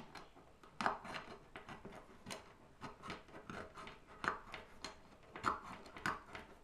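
P-51 folding military can opener being walked around the rim of a tin can, its hinged tooth punching and cutting the lid stroke by stroke: a run of irregular crunching clicks, several a second, some louder than others.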